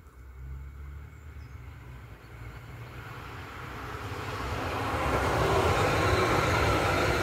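Frankfurt U-Bahn light-rail train approaching and passing close on ballasted track, its wheel and rail noise swelling from about three seconds in and loudest near the end.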